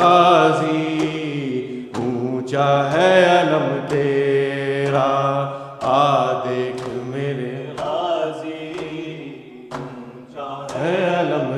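A man chanting an Urdu noha in long, drawn-out phrases over a steady low hum, with sharp slaps of maatam (hands beating on the chest) about every one to two seconds.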